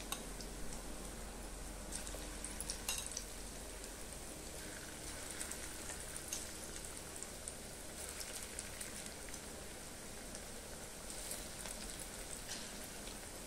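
Moong dal pakoras deep-frying in hot oil in an iron kadai: a steady sizzle with scattered small crackles and pops.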